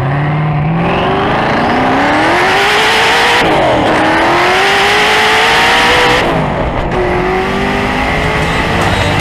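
Hennessey Venom GT's twin-turbocharged V8 at full-throttle acceleration. The engine note climbs steadily in pitch, drops at an upshift a little under four seconds in, climbs again, and drops at another upshift about six seconds in.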